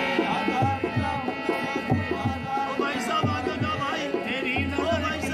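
Qawwali: a man singing a wavering, ornamented melody over a harmonium's held drone and a steady hand-drum beat.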